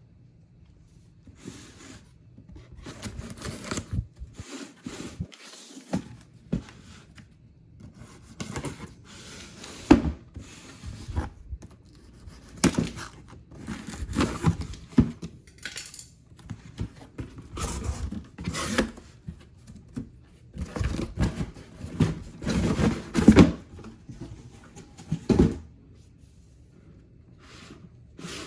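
Shoe box and its packaging being handled and opened: irregular bursts of tearing, rubbing and scraping, with occasional knocks.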